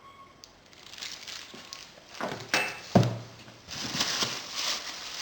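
Rustling and handling noise as kit parts and their packaging are moved about, with a single sharp knock about three seconds in.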